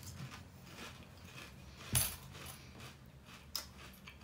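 Lay's Crispy Taco potato chips being chewed with the mouth closed: faint, irregular crunches, with one sharper crunch about two seconds in and another near the end.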